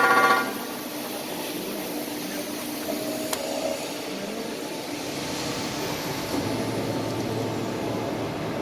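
Crankshaft grinding machine running with a steady mechanical whir, after a loud ringing tone cuts off in the first half second; one sharp click about three seconds in.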